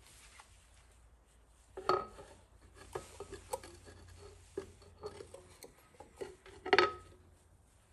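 Metal side cover of a Kubota KND6B diesel engine being worked loose and lifted off by hand: scraping and light metallic clinks, with two louder clanks that ring briefly, about two seconds in and near the end.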